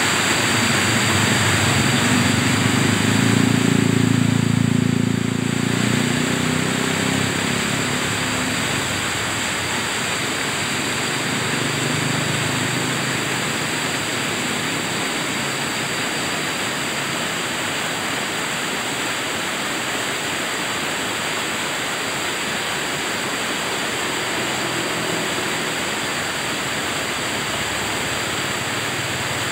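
Rocky stream rapids: water rushing and churning over boulders, a steady full whitewater rush. A deeper low rumble swells in over the first few seconds and fades out by about eight seconds in.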